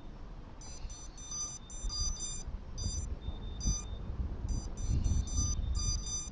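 Irregular clusters of short, high electronic beeps from the powered FPV quadcopters' beepers, several chirps running together at a time, over a steady low rumble.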